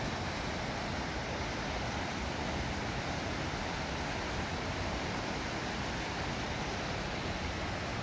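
Whitewater river rapids rushing steadily over boulders, an even, unbroken roar of water.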